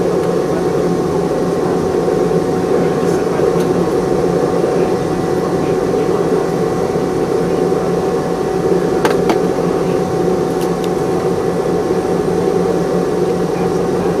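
Steady cabin noise inside a Boeing 717-200, seated near its rear-mounted engines: an even hum with a few constant tones running through it. A couple of faint clicks come about nine seconds in.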